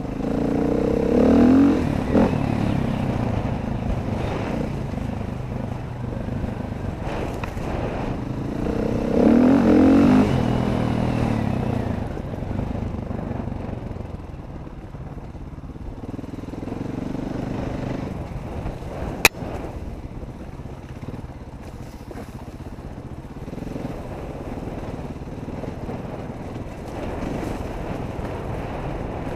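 Dirt bike engines running on a trail ride, revving up and down, with two strong throttle surges about a second in and again around ten seconds, then steadier running. A single sharp click about two-thirds of the way through.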